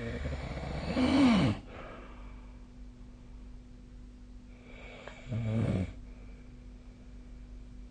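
A sleeping person snoring: one long, loud snore peaking about a second and a half in, then a shorter one about five seconds in. A faint steady hum runs underneath.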